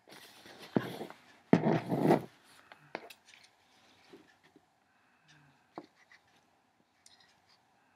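Handling noise from a compact digital camera being brought up and held close to the recording microphone: loud rubbing and brushing for the first two seconds or so, then scattered light clicks and taps as it is held steady.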